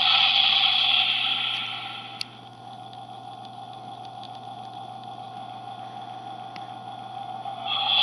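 Looping electronic spaceship sound effect: a steady hum with a hissing whoosh that swells and fades, returning about every eight seconds.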